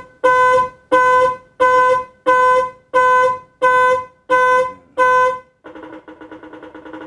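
A 12-volt horn on a motorcycle alarm test rig beeps in a steady on-off rhythm, about three beeps every two seconds, switched by the Bluetooth relay module's alarm channel in step with the hazard flasher. Near the end the beeping gives way to a weaker, lower, continuous buzz as the rig's battery runs flat.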